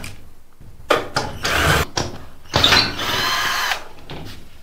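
Cordless drill-driver run in two short bursts of about a second each, backing the screws out of a gypsum-board false-ceiling panel to take it down.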